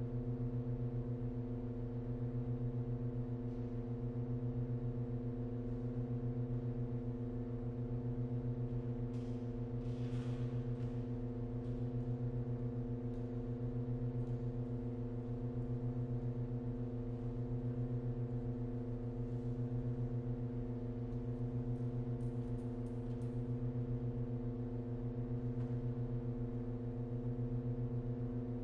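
Pipe organ holding a sustained chord of several steady low and middle tones, with a slow, even pulsing in loudness about every two seconds. A faint brief rustle about a third of the way in.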